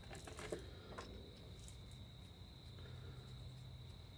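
Steady high-pitched trill of a cricket over a faint low hum, with a few light clicks in the first second.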